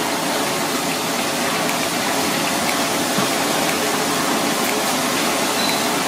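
Hot oil bubbling and sizzling in a deep-frying pan after battered fish pieces come out, a steady hiss with a few small pops.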